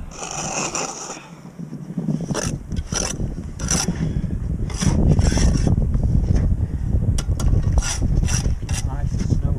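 Steel bricklaying trowel on mortar and concrete blocks: a long scrape, then a run of sharp taps and scrapes as blocks are bedded and knocked down, with a low rumble growing from about halfway.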